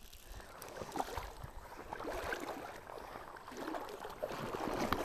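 Shallow creek water sloshing and splashing around a hooked trout being played close in.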